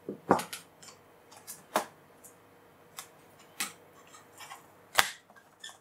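Irregular sharp plastic clicks and taps as a Fujitsu Siemens LifeBook E8010 laptop's keyboard is pressed and snapped back into its place in the case. The loudest snaps come about a third of a second in and about five seconds in, with lighter clicks between.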